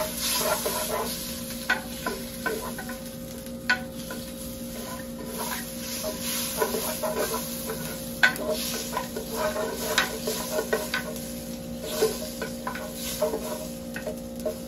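Sliced onion frying and sizzling in melted butter in a clay cazuela while being stirred, with short clicks and scrapes of the utensil against the pot every second or so.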